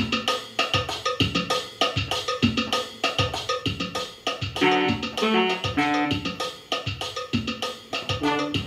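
Electric guitar through a small practice amp and a Casio electronic keyboard playing a song together in a steady rhythm.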